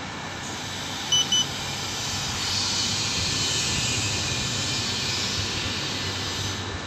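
Fiber optic fusion splicer giving two short high beeps about a second in, the signal that the fiber splice is done. A steady hiss runs underneath and grows louder from about two and a half seconds in.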